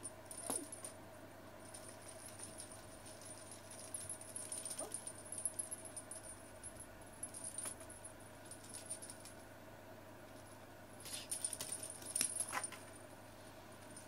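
Small bell on a feather wand cat toy jingling on and off as the toy is shaken and dragged along the floor, loudest about eleven to twelve seconds in.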